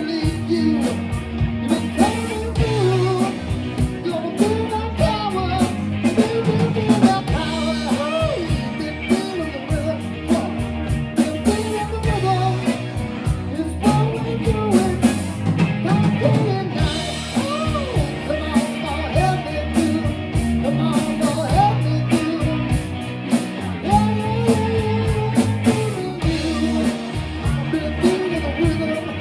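A rock band playing a song, with a lead singer over guitar and a drum kit.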